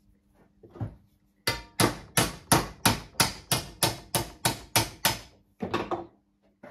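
Hand hammer striking a metal band being formed into a homemade piston ring compressor: about a dozen sharp metallic blows, roughly three a second, with a lighter knock before them and a rougher cluster of hits near the end.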